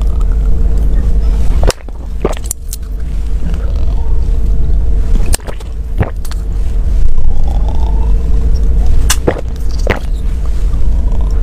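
Heavy, continuous low rumble from a lavalier microphone pressed against the throat, with a steady hum. Several sharp clicks and crinkles come from small aluminium soda cans being handled.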